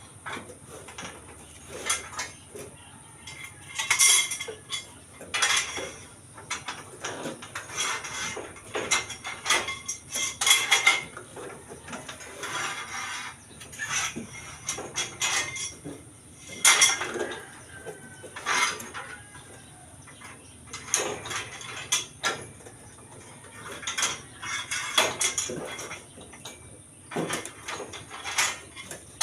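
Steel reinforcing bars clinking and clanking against each other and against metal tools, in irregular bursts of sharp metallic knocks, as rebar stirrups are made by hand.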